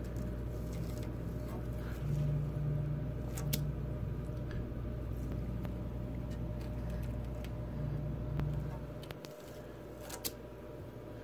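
A steady low machine hum, with scattered clicks and rubbing as fingers handle the edge of a carpet.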